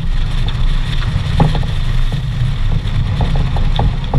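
Wind buffeting an action camera's microphone in a heavy, steady low rumble, over the rush of water breaking along the hull of a sailboat heeled under sail, with scattered light knocks.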